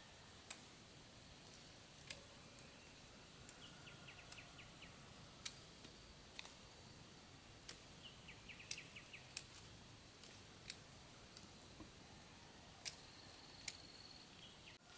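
A quiet background broken by a dozen or so sharp, separate clicks at uneven intervals, with a few short runs of quick, high ticking.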